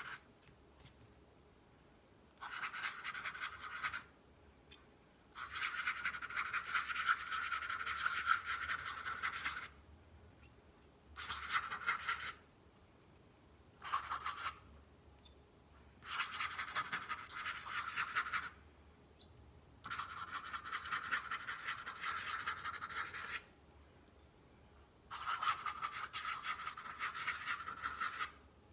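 Metal dip-pen nib scratching across tracing paper as the script is written in ink. It comes in about seven stretches, from under a second to about four seconds long, with short pauses between them.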